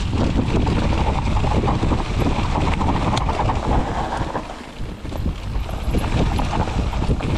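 Mountain bike rolling over rough ground, with a continuous rattle and knocks from the tyres and frame and wind on the microphone; the noise eases briefly about halfway through.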